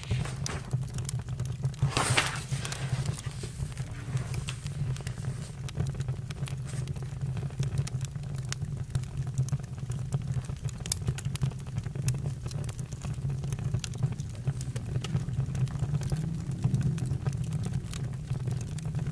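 Campfire burning: frequent sharp crackles and pops over a steady low rumble, with a brief louder hiss about two seconds in.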